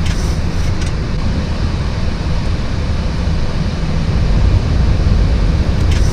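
Steady flight-deck noise of a Boeing 737-800 climbing after takeoff: air rushing past the cockpit with engine noise underneath, mostly a deep rumble, a little louder from about four seconds in.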